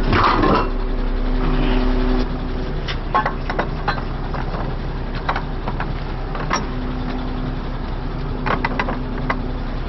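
A heavy vehicle engine idling steadily, with a few sharp metal clinks and knocks scattered through it.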